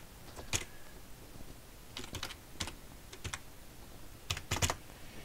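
Typing on a computer keyboard: scattered key presses in short clusters, the loudest few about four and a half seconds in.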